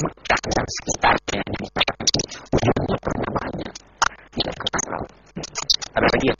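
A man's voice talking in short phrases with brief pauses.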